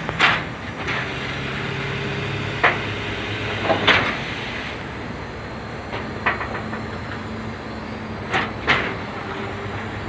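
A car carrier truck's engine running steadily, with about half a dozen sharp metallic clicks and clanks scattered through.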